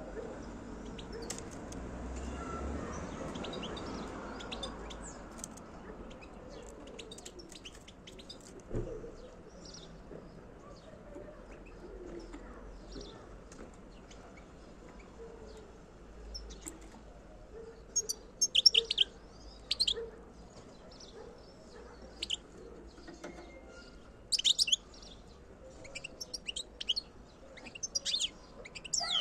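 European goldfinch giving short, high chirping calls, faint and scattered at first, then in loud quick bursts through the second half.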